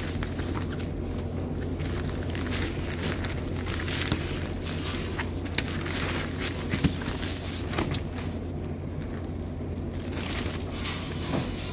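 Clear plastic sheet crinkling and crackling as it is folded and smoothed by hand, over a steady low hum.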